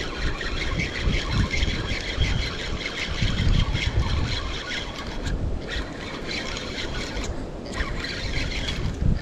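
Wind buffeting the microphone, with the whirr of a spinning fishing reel being cranked to retrieve line; the whirr stops briefly twice in the second half.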